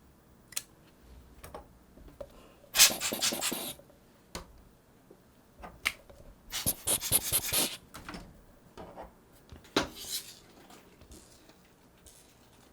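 Small clicks and taps from hands handling the parts of a Sony HVR-DR60 hard-disk recorder being taken apart. There are three louder bursts of rustling and scraping, about three seconds in, about six and a half seconds in, and just before ten seconds, each lasting up to about a second.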